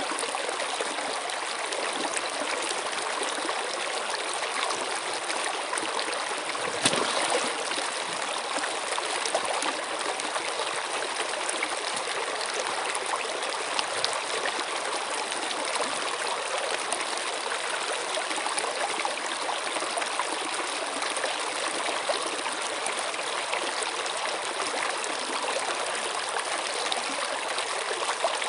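Water flowing steadily in a small stream, a continuous rushing and trickling with small splashes scattered through it and one louder splash about seven seconds in.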